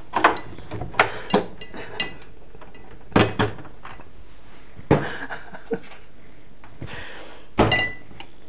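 Scattered clicks and knocks, a dozen or so spread a second or so apart, of hands plugging in a small single-serve blender and handling it and the appliances beside it on a kitchen counter.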